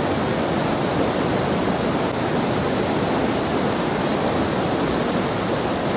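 Steady rush of a rocky stream flowing over boulders.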